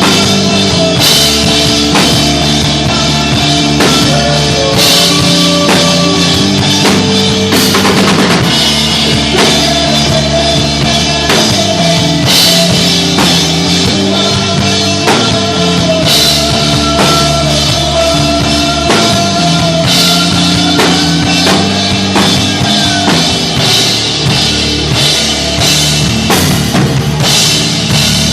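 Live stoner rock band playing: distorted guitar and bass held over a steady drum kit beat with cymbal crashes, no vocals.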